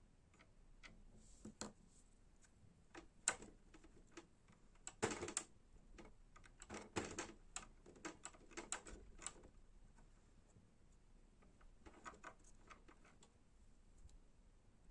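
Irregular light clicks and knocks of small parts being handled by hand, in scattered clusters, busiest in the middle and fading to a few faint clicks near the end.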